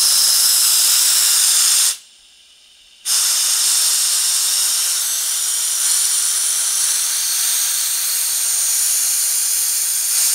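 High-pressure air hissing out of the KompTec KT70SE compressor's bleed valve as the system is bled down to about 1,000 psi ahead of draining the condensate. The loud, steady hiss stops for about a second just after two seconds in, then resumes and carries on.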